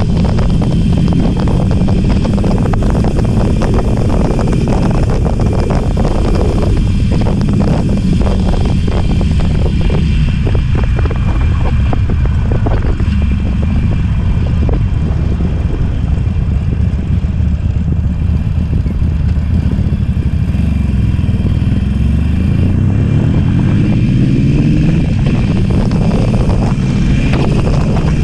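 Harley-Davidson Iron 883's air-cooled V-twin running steadily at highway speed. About three-quarters of the way through, the engine pitch climbs as the bike accelerates, dips briefly at a gear change, then climbs again near the end.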